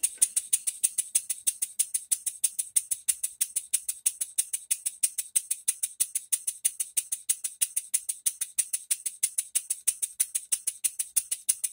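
Bar stock model steam engine running on compressed air, starting at once and going into a rapid, very even beat of hissing exhaust puffs and light mechanical clicks. The freshly timed engine runs smoothly: "What a good sound."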